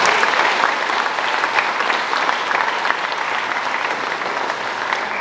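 Crowd applauding: many people clapping together, loudest at the start and slowly dying down.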